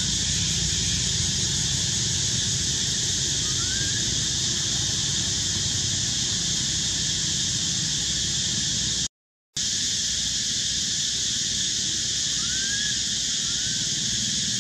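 Steady high hiss of outdoor ambience over a low rumble, with a few brief faint rising chirps, once about four seconds in and twice near the end. The sound drops out completely for about half a second around nine seconds in.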